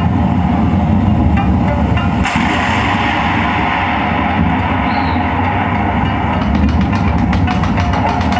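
Live kabuki accompaniment with plucked shamisen-type strings, played over a steady low rumble. Sharp plucked or struck notes come more thickly near the end.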